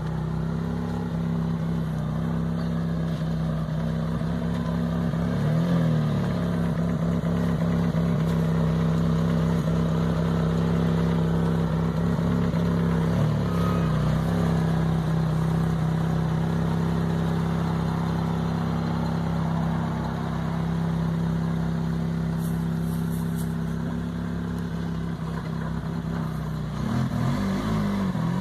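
A vehicle engine running steadily, with a few brief changes in pitch about six, thirteen and twenty-seven seconds in.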